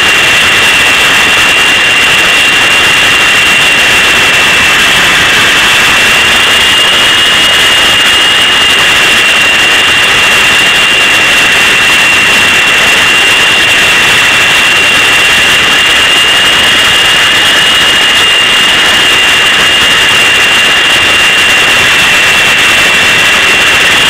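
450-size radio-controlled model helicopter heard up close from on board, running at steady flight speed: a loud, steady high whine over constant rotor noise.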